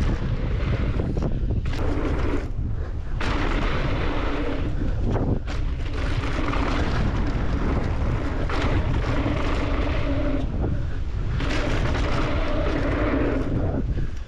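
Wind buffeting the microphone over the rumble and chatter of mountain bike tyres on a fast downhill trail descent. It runs loud and steady, with a few brief drops.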